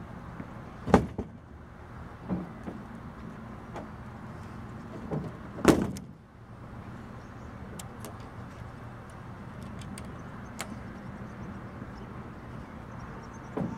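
Hard panels of a BakFlip MX4 folding tonneau cover being folded up by hand: several sharp knocks and thumps, the loudest about six seconds in, then a few light clicks and one more knock near the end.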